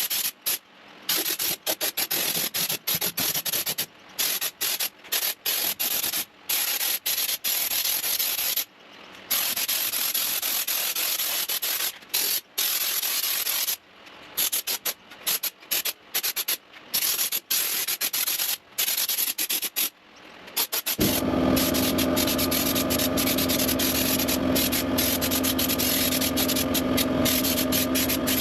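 Air-fed spray gun hissing in short, repeated bursts as it is triggered on and off, spraying Raptor protective coating. About 21 seconds in, the hiss becomes continuous and a steady machine hum joins it.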